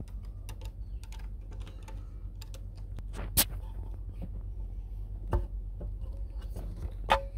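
A stainless worm-drive hose clamp being unscrewed with a driver and then handled off the heater hose: a run of small irregular clicks, with louder knocks about three and a half, five and a half and seven seconds in, over a steady low hum.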